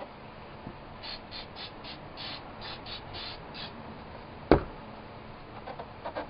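About nine short raspy hisses in quick, uneven succession, then a single sharp knock about four and a half seconds in.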